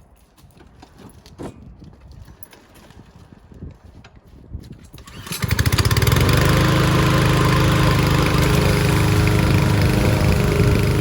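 Yardworks 174cc single-cylinder lawn mower engine starting up about halfway through, then running steadily and loudly, after a few seconds of faint knocks and handling noise.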